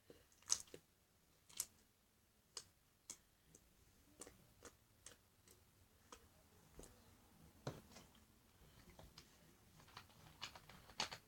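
Clicky slime being squished and worked by hand, giving faint, irregular clicks and pops, with a quick run of them near the end.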